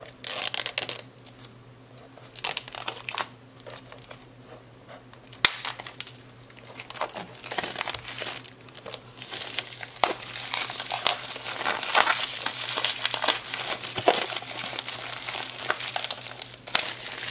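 Plastic shrink-wrap crinkling and tearing as it is peeled off a hardcover notebook: scattered bursts at first with one sharp click about five seconds in, then nearly continuous crinkling through the second half.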